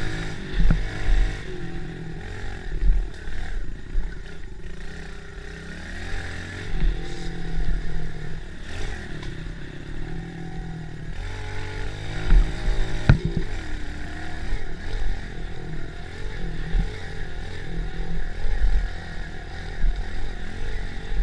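Minibike engine being ridden on a bumpy dirt track, revving up and easing off again and again. A few sharp knocks cut through the engine noise as the bike goes over rough ground.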